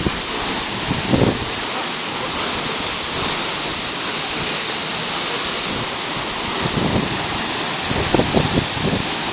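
Waterfall rushing steadily, a loud, even hiss of falling water, with a few brief low rumbles about a second in and again near the end.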